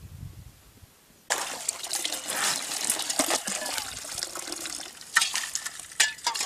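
A brass ladle scooping water from a hole in river ice and pouring it into a metal pail: splashing and sloshing that starts suddenly about a second in, with sharp knocks now and then.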